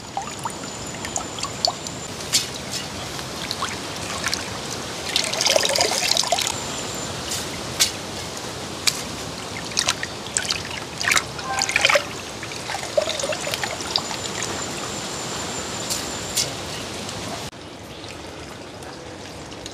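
Water trickling and splashing as washed rice is scooped out of its rinse water and tipped into a large aluminium pot of coconut milk, with scattered sharp splashes and clicks.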